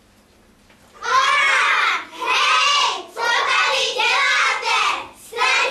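Children's voices calling out loudly on stage in short phrases of about a second each, starting about a second in after a quiet moment.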